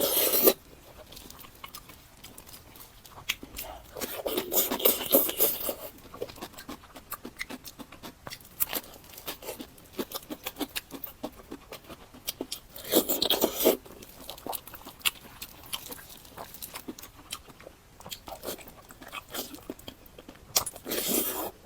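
Close-miked eating: four loud crunching bites spread through, with chewing and small mouth clicks in between.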